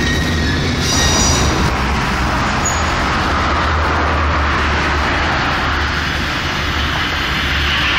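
Wagons of a shunting train rolling slowly along the track, with a steady rumble and clatter of wheels on rail over the low drone of a T44 diesel shunting locomotive. A brief high wheel squeal about a second in.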